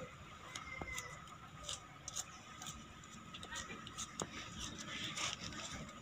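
Faint scattered clicks and small taps of a paring knife cutting tomato by hand over a metal bowl, with a faint murmur of voices in the background.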